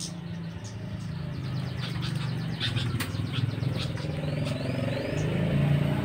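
A motor vehicle engine running close by, getting steadily louder, with short high bird chirps and calls over it.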